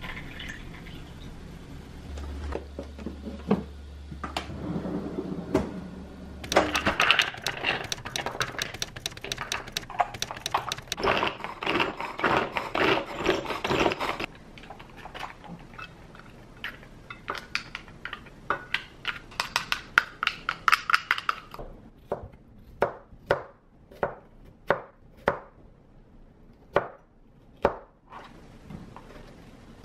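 A small pull-cord food chopper worked in repeated pulls, its cord and spinning blades giving dense rattling whirs. Then a kitchen knife chopping through baby corn onto a plastic cutting board: about a dozen single chops, roughly half a second apart, near the end.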